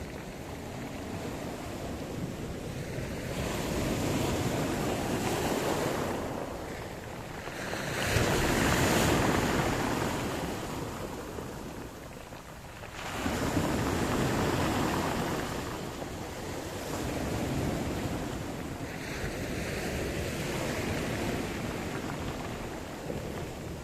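Sea surf: waves breaking and washing in, the hiss of water swelling and falling away in several surges, loudest about eight seconds in and again about thirteen seconds in.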